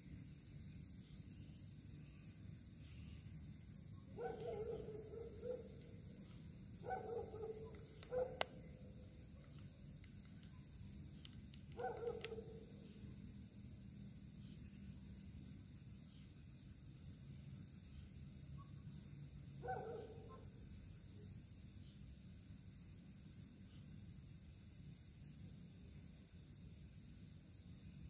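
Crickets chirring in a steady high drone, with an animal giving five short calls that fall in pitch, spaced a few seconds apart, and two sharp clicks near the middle.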